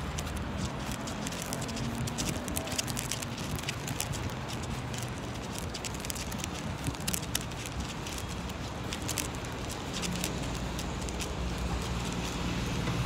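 Fabric rustling and crackling against a phone's microphone, with many irregular small clicks, over a low steady background rumble.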